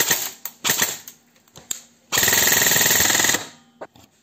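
G&G ARP9 airsoft electric gun, fitted with a Perun ETU++ trigger unit, being test-fired: a few single shots in the first second or so, then a burst of rapid full-auto fire lasting just over a second, about two seconds in.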